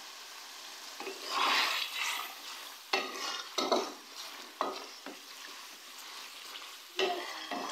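Wooden spatula stirring and scraping chicken masala around a metal pan, several strokes, over a steady sizzle of frying oil. The liquid is being cooked off over a high flame so the masala fries in its oil.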